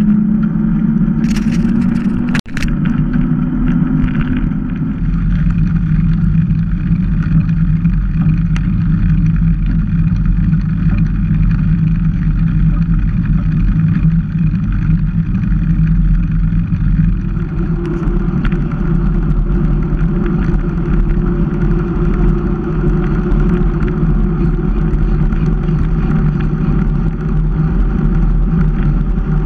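Mountain bike rolling fast on an asphalt road: a steady hum from the tyres on the tarmac, its pitch shifting a little with speed, over a low rumble of wind on the action camera's microphone. A few sharp clicks about two seconds in.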